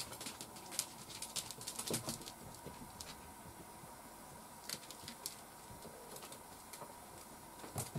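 Light scattered taps and clicks of cats stepping and pawing about on a cloth-covered tabletop, clustered in the first two seconds and again around the middle, over a faint steady tone.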